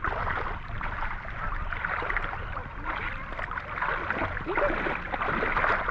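Water sloshing and splashing steadily, as if being waded through or stirred by hand.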